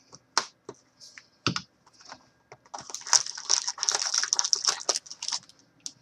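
A shrink-wrapped trading card box being cut open with a small knife and its cardboard lid opened. A few sharp clicks and a thump come in the first two seconds, then a dense crackling rustle of plastic wrap and cardboard lasts about two and a half seconds.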